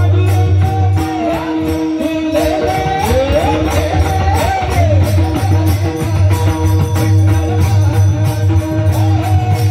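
Traditional-style Indian music: a steady low drone under a melody that glides and bends, loudest in the middle, with a regular jingling percussion beat.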